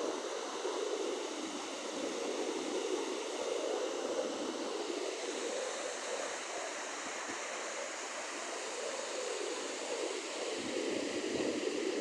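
Floodwater rushing steadily, an even churning roar of moving water.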